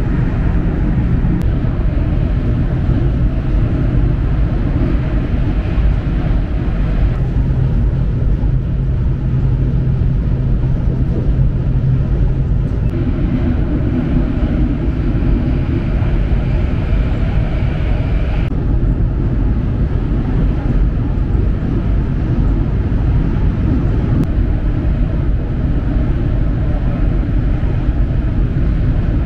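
Shinkansen bullet train running at speed, heard from inside the passenger cabin: a steady, loud rumble and rush of wheels on rail and air past the body. Its tone and hiss shift a little a few times along the way.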